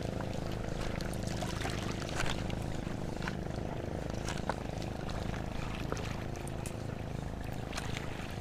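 A boat engine running steadily at an even low pitch, with scattered light clicks and taps over it.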